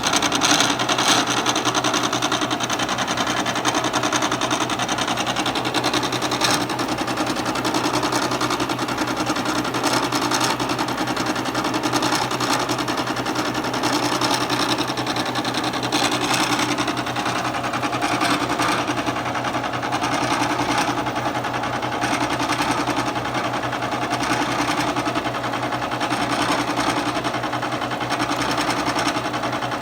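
Bridgeport vertical milling machine running, its 2 1/2-inch six-tooth carbide inserted face mill taking a continuous cut along a gear rack under table power feed. A steady, even cutting noise of the inserts on metal over the hum of the spindle.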